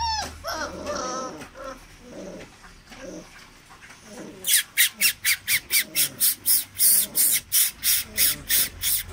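Great Dane puppies whining and yipping in short, wavering cries. About halfway in, a loud, rapid run of shrill squeaks begins, about four a second, and becomes the loudest sound.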